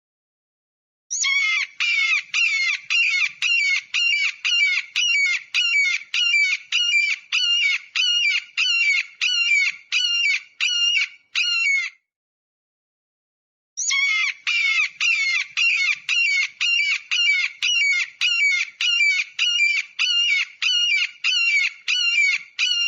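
An eagle calling: a rapid series of high, piping calls, about two a second, in two long runs with a short break about twelve seconds in.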